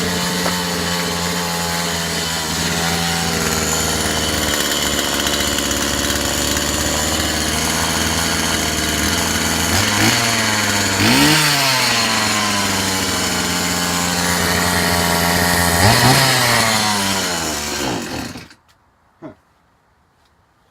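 Two-stroke chainsaw engine idling, which the owner says still doesn't sound quite right, with three brief revs of the throttle around the middle. Near the end it dies out as the fuel tank runs dry.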